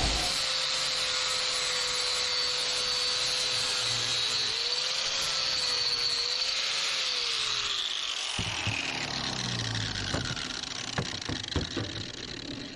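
Electric power tool motor running at speed with a steady high whine, then switched off about seven seconds in and winding down in falling pitch. A few sharp knocks follow as it slows.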